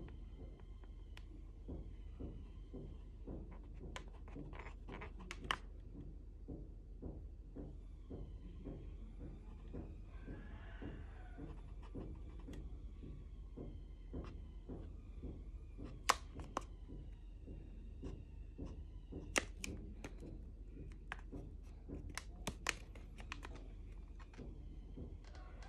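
Felt-tip marker dabbing and scraping on an inflated latex balloon while fingers grip and shift it: a string of soft ticks with a few sharper clicks, over a faint steady hum.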